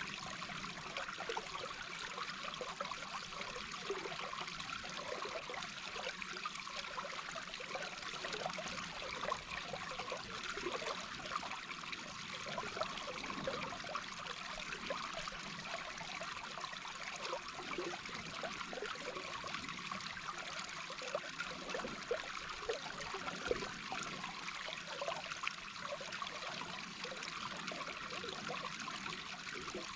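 A small brook heard from underwater: a steady mass of bubbling and gurgling from water running over stones, with many small irregular pops.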